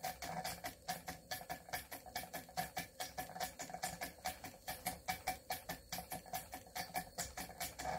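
Cotswold Cirrus model steam beam engine running under steam, its exhaust beating in a quick, even rhythm of about four chuffs a second over a steady hum.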